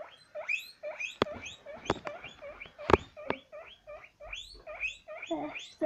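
Guinea pig wheeking: a steady run of short rising squeaks, about three or four a second, with a few sharp knocks among them. The calling is loud, which the owner puts down to the guinea pig expecting water.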